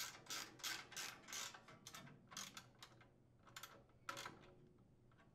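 Faint small metallic clicks, about three a second, from a hand-turned socket and extension driving the screw that holds the muffler guard strap to its bracket; they stop about four seconds in.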